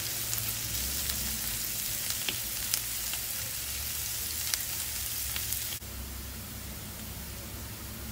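Chopped onion and garlic sizzling in hot oil in a nonstick frying pan while being stirred with a nylon spatula, with scattered light clicks of the spatula against the pan. About six seconds in the sizzle drops to a quieter, even hiss.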